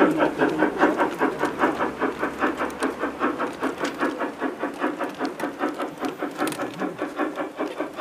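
Garden-scale model train running past on its outdoor track, with a rapid, even beat of about five pulses a second that slowly fades.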